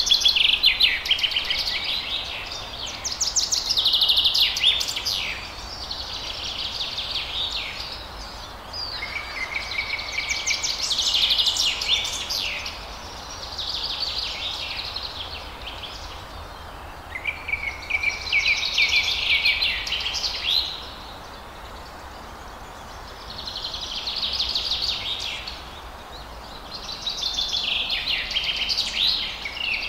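Songbirds singing in repeated phrases of rapid chirps and trills, a new phrase every few seconds, over a steady low background hum.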